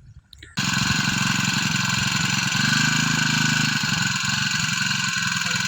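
Small engine of a motorized knapsack sprayer running steadily with a strong hiss over it, cutting in abruptly about half a second in.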